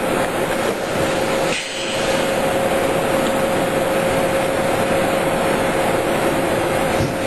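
Machinery on a container factory floor running: a steady mechanical din with a constant hum, dipping briefly about one and a half seconds in.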